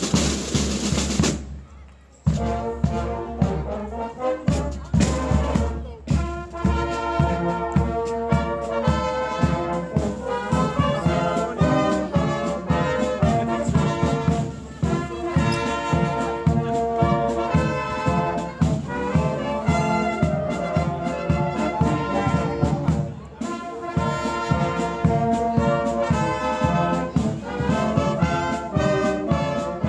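Brass band of trumpets, trombones and sousaphone playing a march outdoors, with a steady drum beat under it. A short burst of noise opens it, and the music has a brief break about two-thirds of the way through.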